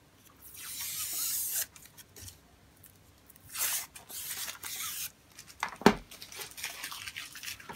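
Thin plastic protective film being pulled and peeled off a power strip, in two long, hissing rips, followed by a single sharp knock about six seconds in.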